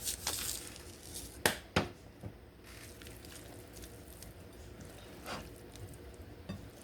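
Seasoning rub shaken from a shaker onto raw chicken pieces: a brief rattle of granules, then two sharp knocks close together about a second and a half in. Afterwards only faint handling sounds.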